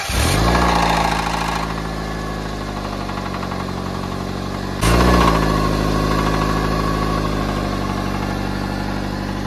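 A Maruti Suzuki Swift's MPFI petrol engine cranks and starts, flares, then idles with an abnormal noise and a misfire. The cause is a damaged connecting rod bearing on one rod that seized for lack of oil. About five seconds in the revs briefly jump up, then settle back to idle.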